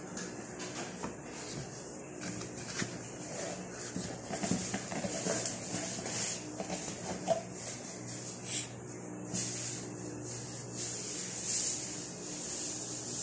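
Faint rustling and scuffing as a hand handles newborn kittens on a towel and moves the flap of their cardboard box, over a steady low hum.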